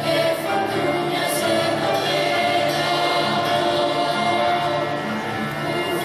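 A choir singing, with voices holding long, sustained notes.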